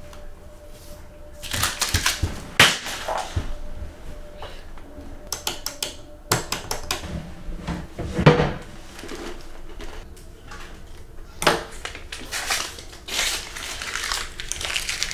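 A person moving about and handling things: irregular rustling and scraping broken by several sharp knocks and clatters, the loudest about two and a half and eight seconds in.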